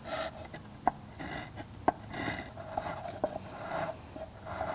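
Sandpaper wrapped on a wooden block rubbing against the internal corner of a wooden box in repeated short strokes, a dry scratchy rasp, lightly chamfering the sharp edge by hand. A few light clicks between strokes.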